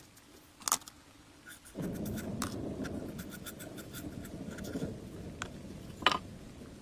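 Restoration work on a rusty machine: scraping and rubbing with scattered sharp clicks and knocks. About two seconds in, a low rumbling scraping noise sets in and slowly fades.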